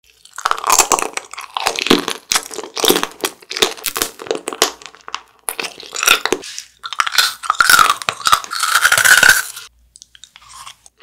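Close-miked eating of crunchy sugar-shelled candy such as jelly tanghulu: a quick run of crisp crunching bites and chewing, with a denser crackling stretch from about seven to nine and a half seconds, then a few quieter crunches near the end.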